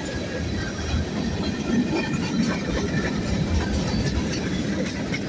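Freight train cars rolling past, steel wheels running on the rails with a steady rumble and scattered clicks.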